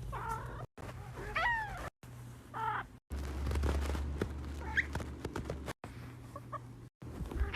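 Domestic cat making several short meows and chirps, a few of them falling in pitch. They come in brief snippets broken by abrupt cuts to silence.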